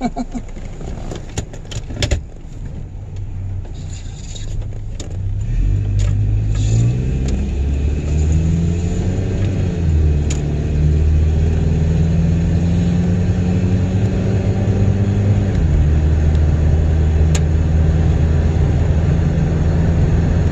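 Pickup truck engine pulling away and accelerating, its pitch climbing and dipping twice as it shifts up, then running steadily at road speed. A few clicks and knocks come in the first two seconds.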